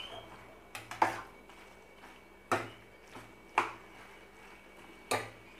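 A spoon or spatula knocking against the cooking pan while the dry bitter gourd stir-fry is stirred: about five short, sharp clicks spread out, with quiet between them.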